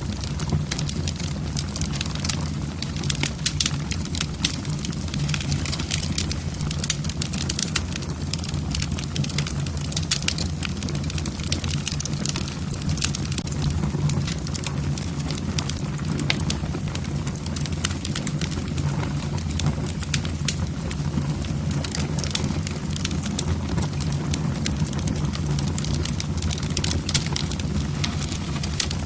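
Wood fire in a fireplace, logs crackling with many irregular sharp pops over a steady low rumble.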